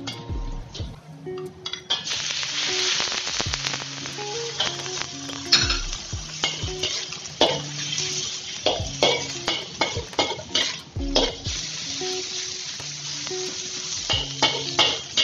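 Sliced pork frying in a hot steel wok with garlic and oil. The sizzle rises sharply about two seconds in and eases near the end, while a metal wok spatula scrapes and clanks against the pan as it stirs. Background music runs underneath.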